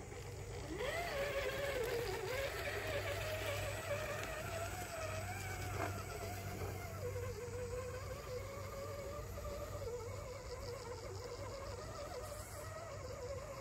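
Electric motor and gearbox of a radio-controlled crawler truck whining as it climbs a steep dirt hill, the pitch wavering up and down with the throttle. The whine starts about a second in, and there is one sharp click about halfway through.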